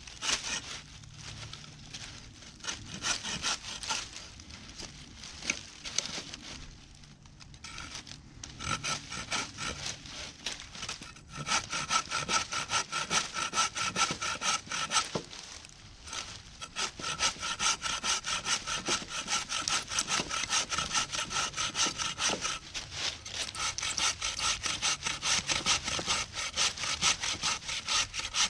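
Saw cutting through wood in quick back-and-forth strokes, stopping briefly a few times before carrying on.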